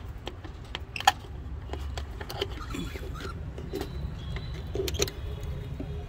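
Wooden nest box door being handled and opened: scattered small clicks and knocks, with one sharp click about a second in, over a steady low rumble of handling noise.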